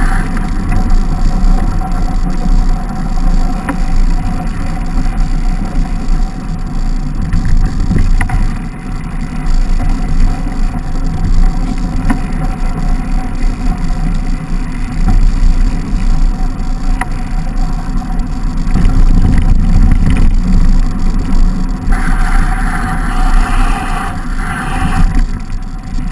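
Mountain bike rolling downhill on a snow-covered track, heard through a bike-mounted camera: a loud, steady low rumble of wind and tyre noise with scattered clicks and rattles, turning brighter and hissier for a few seconds near the end.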